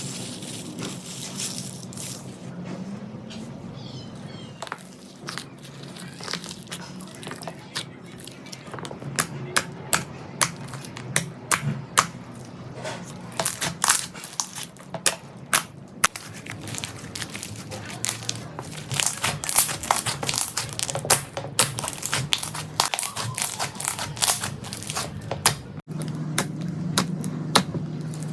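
Slime being squeezed and pressed by hand, with many sharp clicking and crackling pops that grow denser after the first few seconds.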